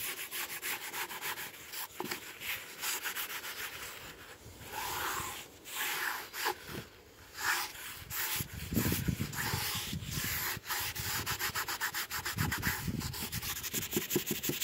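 Rag rubbed back and forth in quick strokes along a wooden drawer runner, working in wax so the drawer slides freely; the strokes pause briefly about halfway through.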